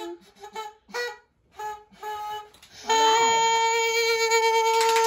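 A party horn noisemaker blown in one long, steady note of about three seconds, starting about three seconds in, after a few short sounds.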